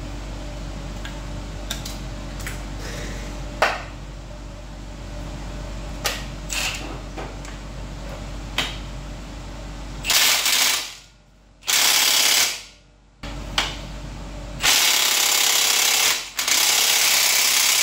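A power tool run in four short bursts during engine disassembly, the last two longer. Before the bursts there is a steady low hum with a few sharp metallic clicks.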